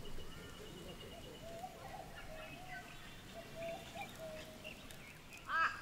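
Quiet bush ambience with several birds calling faintly in short chirps and whistled notes. Near the end comes one louder, harsher bird call whose pitch rises and falls.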